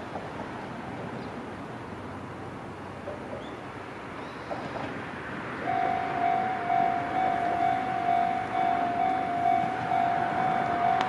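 A Japanese railway level-crossing warning bell starts ringing suddenly about halfway through, a loud electronic ding repeating in an even beat over a steady background hiss.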